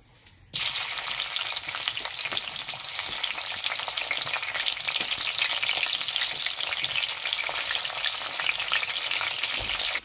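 Capsicum (green bell pepper) frying in hot oil: a dense, steady sizzle and crackle with many small pops. It starts suddenly about half a second in.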